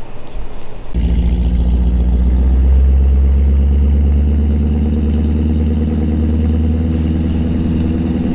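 Chevy 350 V8 of a 1929 Ford Model A pickup street rod running steadily as the truck pulls away. The sound cuts in suddenly about a second in.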